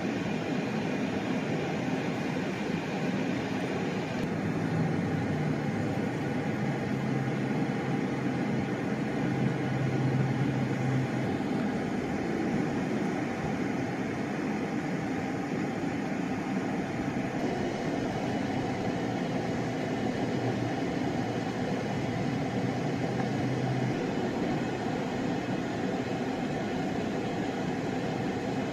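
Freight train cars rolling steadily past on the rails, an even rumbling noise with a low hum under it.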